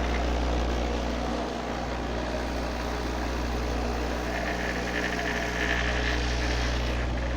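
12-inch Pioneer subwoofer playing a loud, steady deep bass drone, with a rougher hiss-like layer on top.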